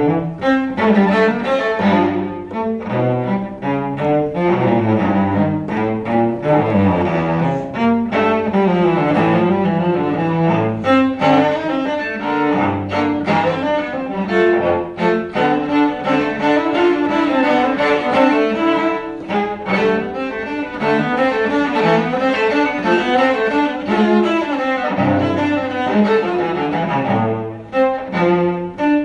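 Solo cello bowed in a flowing melodic passage, the notes changing quickly one after another, each rich in overtones. There is a brief lull in the playing near the end before it carries on.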